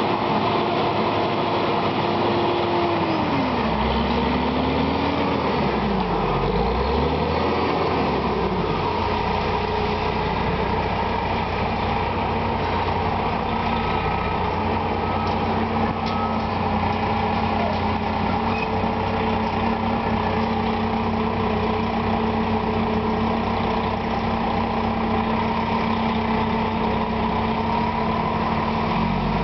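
Heavy truck engine running. Its pitch drops about three seconds in and wavers for several seconds, then it settles into a steady note.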